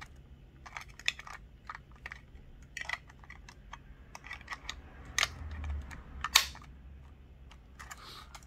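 Light plastic clicks and taps as the DJI Mini 2 drone's plastic body and folding arms are handled and turned over in the hands, irregular, with a sharper click about 5 seconds in and another about a second later.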